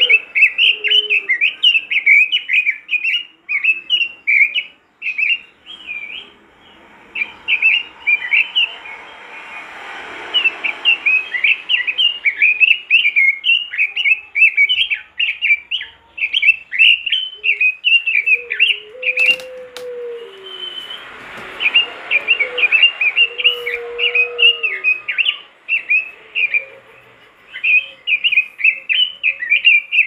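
Red-billed leiothrix (Pekin robin) singing a loud, fast, high warbling song in long runs broken by a few short pauses. Fainter, lower whistled notes sound in the background in the second half, with a single sharp click about two-thirds through.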